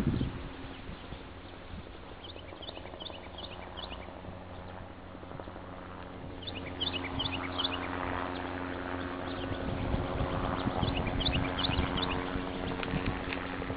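A songbird singing runs of quick, falling chirps three times, over a steady low hum from a distant motor.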